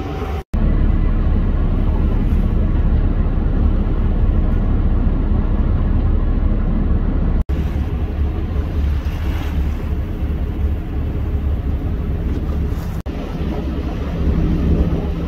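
Steady low rumble of boat engines mixed with rushing water and wind buffeting the microphone, broken three times by a brief dropout.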